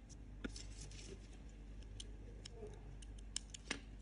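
Faint, irregular light clicks and ticks from a metal crochet hook and cotton yarn being worked by hand, the sharpest click coming near the end.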